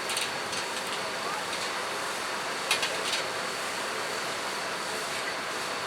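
Steady rushing noise with a few short light clicks, about three seconds in and near the start.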